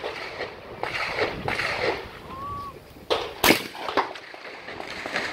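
Shotgun fire at clay targets: two sharp reports about half a second apart, the second the louder.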